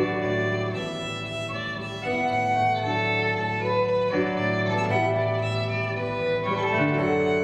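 Live acoustic music: a fiddle playing a melody of held notes over a steady low drone.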